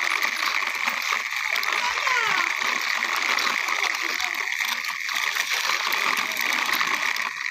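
Plastic toy backhoe loader pushed back and forth by hand on concrete, its wheels and gearing making a steady grinding rattle. A brief falling squeak comes about two seconds in.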